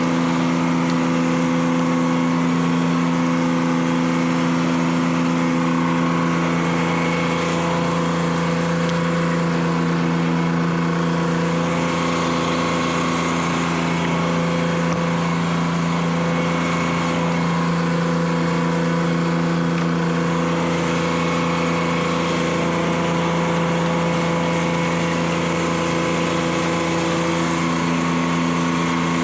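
Detroit Diesel 3-71 two-stroke three-cylinder power unit running at a steady speed under a steady drone, driving the sawmill.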